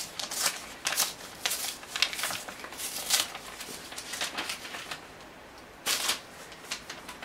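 Paper rustling as a mailed envelope is handled and opened by hand, in short irregular rasps that thin out after about five seconds, with one more a second later.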